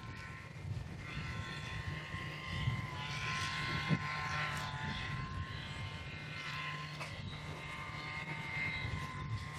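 A steady hum of several held pitches from a distant engine or motor, over a low wind rumble on the microphone, with a faint knock about four seconds in.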